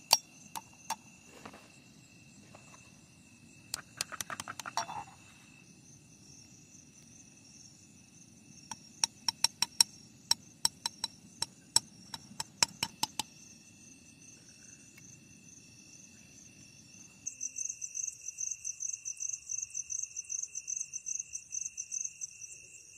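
Crickets trilling steadily, with a run of sharp taps at about four a second in the middle: an egg being knocked against the rim of a steel pot to crack it. Past the halfway point the cricket chirping gets louder and pulses rapidly.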